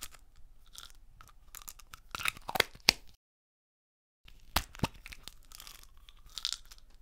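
Pills rattling and clicking in a pill bottle as they are shaken and tipped out, in two spells of sharp clicks with about a second of dead silence between them.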